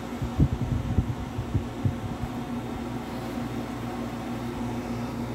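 Portable dehumidifier running: a steady fan and motor hum, with a few soft low thumps in the first two seconds.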